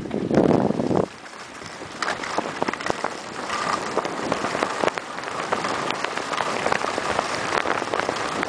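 Skis sliding and scraping over snow at speed, a steady hiss with many small scrapes and clicks, with wind rushing over the microphone, loudest in the first second.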